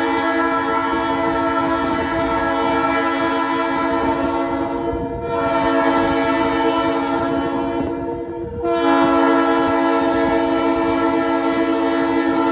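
Diesel locomotive air horn of DMIR SD-9 814, blowing long blasts for a grade crossing: one to about five seconds in, a second to about eight and a half seconds, and a third that is still sounding at the end. The horn is a multi-chime chord, which the railfan takes for a Nathan P3. The approaching train rumbles underneath.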